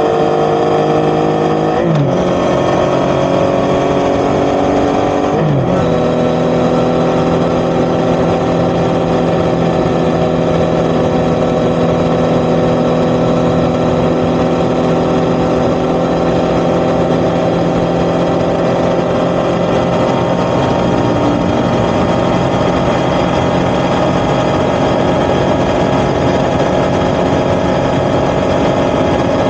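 Yamaha XSR900's crossplane inline-three engine through an Akrapovic titanium exhaust, accelerating with two quick upshifts: the pitch climbs and drops sharply at about two and five seconds in. It then settles into a steady cruise.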